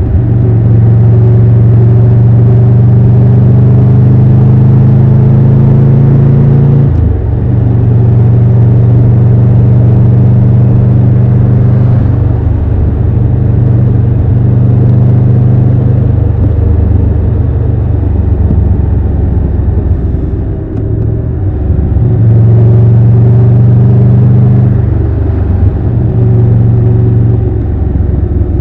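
Triumph Tiger 1200 Rally Pro's three-cylinder engine and exhaust running steadily, its note shifting several times as the throttle is opened and closed.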